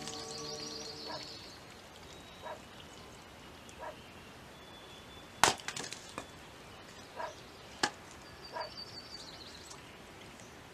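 An axe chopping firewood on a wooden chopping block: sharp wooden knocks, with two loud strikes about five and a half and eight seconds in and several lighter knocks between.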